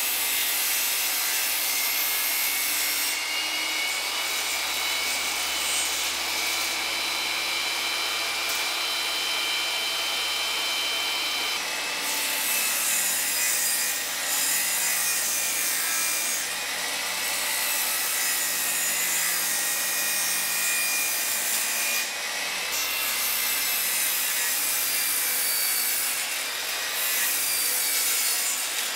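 Table saw running with its blade cutting 10 mm plywood: a steady high whine over the rushing noise of the cut, with an abrupt change in the sound about twelve seconds in.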